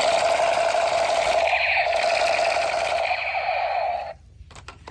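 Battery-powered toy gun's electronic firing sound: a loud, steady, fast-pulsing buzz that cuts off suddenly about four seconds in.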